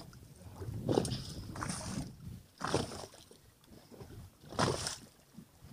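Water slapping and splashing against the hull of a small fishing boat in a series of uneven surges, the loudest about a second in and near the end.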